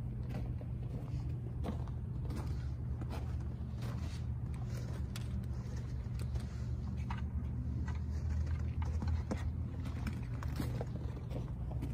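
Rabbits eating from a bowl: scattered small irregular clicks and crunches as they chew. Under them runs a steady low mechanical hum, the loudest thing throughout.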